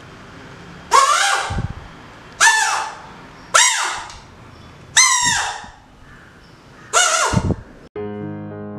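Homemade ice-cream-stick harmonica, a rubber band stretched between two wooden sticks, blown by mouth in five loud, buzzy squawking blasts, each sliding in pitch. Piano music starts near the end.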